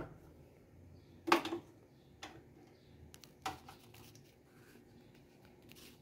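A few short, quiet knocks and clicks from handling a plastic blender jar and fitting its lid, the loudest about a second in; the blender motor is not yet running.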